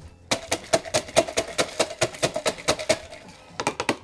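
Muddler pounding and crushing ice in a stainless steel cocktail shaker tin: a rapid run of sharp strikes, several a second, with the metal tin ringing between them. A short lull near the end, then a few quick strikes.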